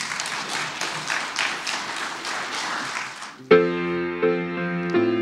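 A congregation clapping for about three and a half seconds, then a grand piano coming in with sustained chords to open the closing song.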